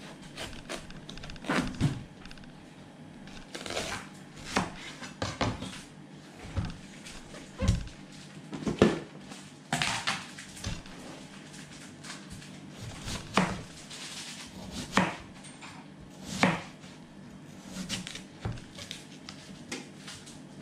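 Large kitchen knife cutting a watermelon on a plastic cutting board: sharp, irregular knocks every second or two as the blade strikes the board and the melon halves are set down.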